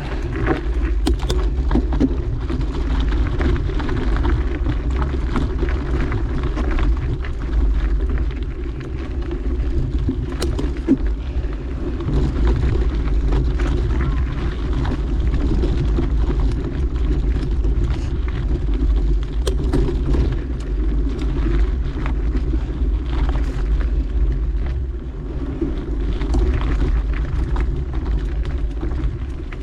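Mountain bike rolling steadily along a dirt trail: a constant rumble of tyres and wind on the microphone, with scattered clicks and rattles from the bike over bumps.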